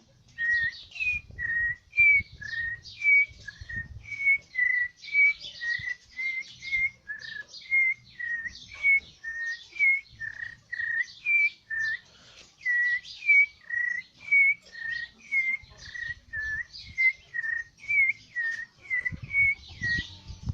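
A person whistling an imitation of a bird call: short chirping notes at nearly the same pitch, repeated about two a second, each with a breathy hiss.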